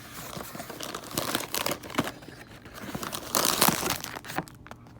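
Packaging being opened and rummaged through by hand, with irregular crinkling and rustling and a louder burst of crackling about three and a half seconds in.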